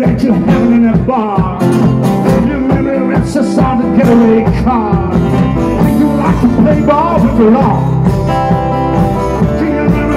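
Live rock band playing at full volume: drums, bass and electric guitars keep a steady beat under a lead melody line whose notes bend and waver in pitch.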